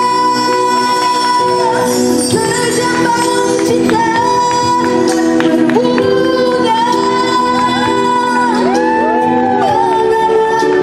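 A woman singing into a handheld microphone over instrumental backing with long held chords.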